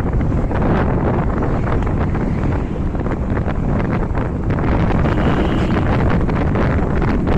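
Wind rushing and buffeting over the microphone of a camera carried on a moving motorbike, a loud steady rumble with the ride's road noise beneath it.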